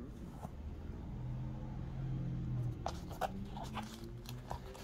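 A few light clicks and taps of a sunglasses box and its packaging being handled, over a low steady hum that swells in the middle.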